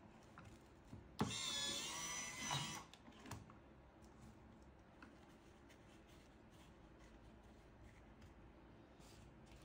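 Electric cigarette rolling machine's small motor running once, whining for about a second and a half with a wavering pitch, followed by a single click.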